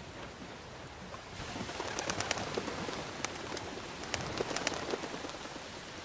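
A pigeon's wings flapping in a run of quick sharp claps as it is released and flies off, over a wash of sea and wind noise that swells about a second in.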